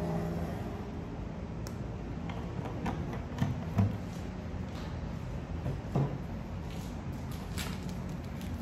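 Scattered light clicks and knocks from a plastic bottle cap and a reed diffuser being handled on a wooden tabletop. The loudest taps come a little before four seconds in and at about six seconds.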